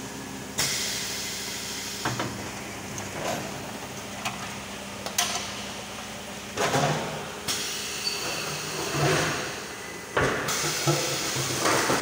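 Automatic 5-gallon water bottling machine running: a steady hum with irregular clunks and short hisses every second or so.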